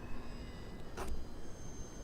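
Brushless electric motor of an RC Cessna 182 model airplane giving a thin, high whine whose pitch drifts slowly, over a steady low rumble, with one sharp click about a second in.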